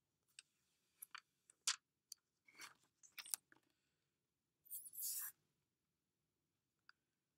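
Faint handling noises of a plastic phone screen protector being fitted onto a phone: a scatter of small clicks and crinkles, then a brief rustle about five seconds in and one last light click near the end.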